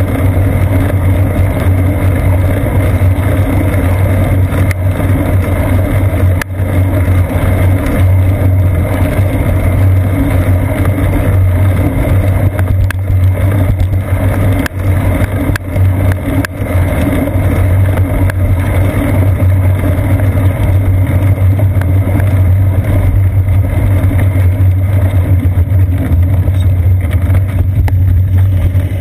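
Loud, steady rumble from a GoPro Hero 2 on a bicycle's seat post while riding on a wet road: vibration from the tyres and frame carried into the camera.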